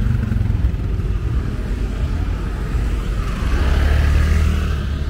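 Busy street traffic of motorbikes and cars, engines running steadily, with one vehicle passing close and loudest from about three and a half to four and a half seconds in.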